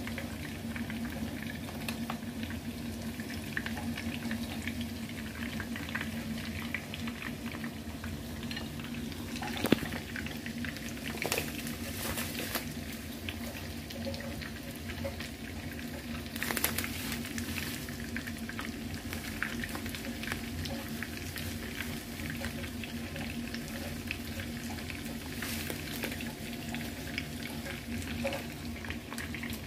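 Breaded chicken fillets shallow-frying in oil in a pan: a steady sizzle with crackling, and a few sharp knocks.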